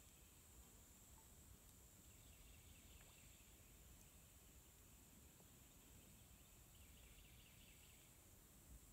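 Near silence: faint outdoor ambience with a thin, steady high tone and a few faint patches of rapid trilling.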